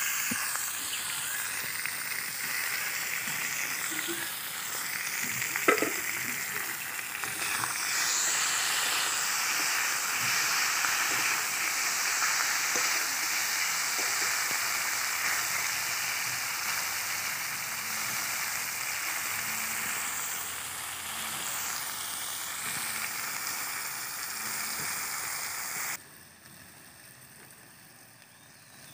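Masala-coated puti fish sizzling loudly in hot mustard oil in a kadai, just tipped into the pan and turned with a metal spatula; one sharp knock about six seconds in. The sizzle cuts off abruptly about three seconds before the end.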